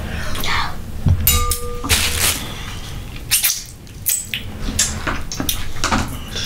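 Close-up eating sounds: fingers picking food out of a glass bowl of sauce, with many short clicks, taps and wet handling noises.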